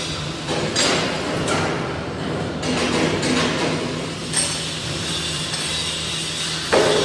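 Metal workshop noise: a steady machine hum, with several sharp metal clinks and knocks as steel parts are handled and set down on a steel welding table.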